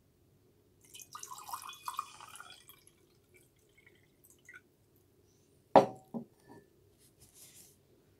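Water poured from a glass bottle into a drinking glass, splashing for about two seconds, then a few faint drips. About six seconds in comes a single hard knock, the loudest sound, with a smaller one just after it.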